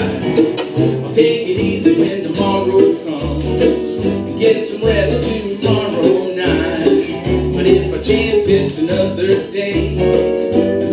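Acoustic bluegrass-country band playing an instrumental passage with no singing: mandolin, strummed acoustic guitar and resonator guitar over a plucked upright bass line.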